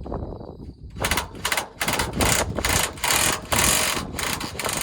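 Air impact wrench run in several short bursts, each a harsh rattle, working the bolts loose on a combine's cleaning-shoe drive.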